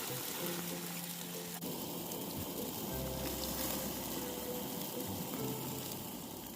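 Soft background music of sustained notes with a changing bass line, over a steady hiss.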